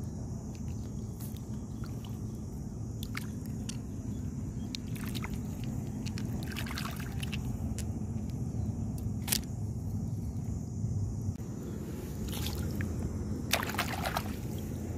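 A hand digging for clams in wet, gritty sand: scattered short scrapes and clicks, then water splashing near the end, over a steady low background rumble.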